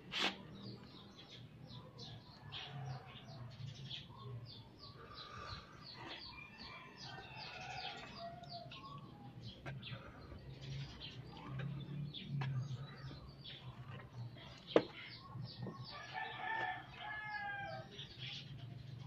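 Birds chirping and chickens calling, with a longer multi-note call at about sixteen seconds, over a low steady hum. A single sharp click at about fifteen seconds is the loudest moment.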